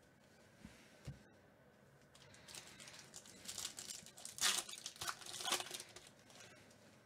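Foil wrapper of a trading card pack being torn open and crinkled by hand, the crackling building from about two and a half seconds in and loudest near four and a half seconds. Two soft low thumps come about a second in.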